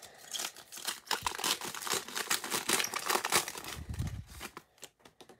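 A Panini Illusions trading-card pack wrapper crinkling and tearing as it is pulled open by hand: a dense run of crackles that dies away shortly before the end.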